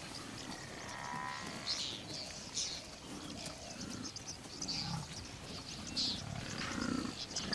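African buffalo herd on the move, giving scattered low grunts, with short bird calls over them.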